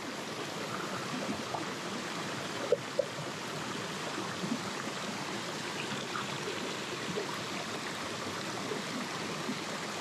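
Mountain headwater stream running and splashing over rocks in small cascades, a steady rush of water. Two light ticks sound about three seconds in.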